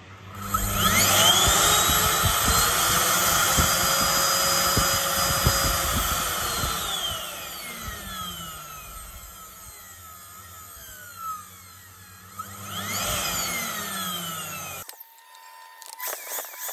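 AEG JetMaxx vacuum cleaner motor spinning up as its power regulator is turned up and running at high speed with a whine. It winds down as the regulator is turned back, spins up briefly once more and slows again, and stops abruptly a couple of seconds before the end. A few short clicks of handling follow.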